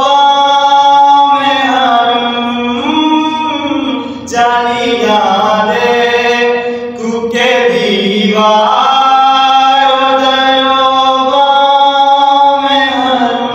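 A solo male voice reciting a naat, unaccompanied devotional singing in long held notes that slide from one pitch to the next between phrases.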